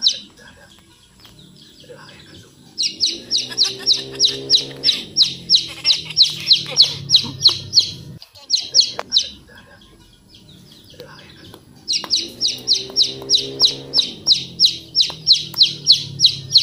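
A bird calling in long runs of quick, evenly spaced high chirps, about four to five a second, twice for about five seconds each, with a lower drawn-out sound under each run.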